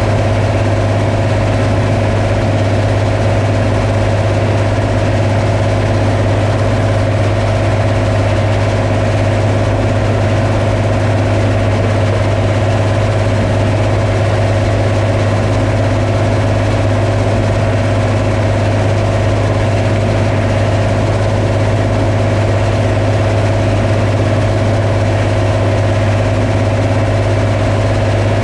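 Combine harvester running at a steady speed: a constant low drone with a steady higher hum above it, unchanging throughout.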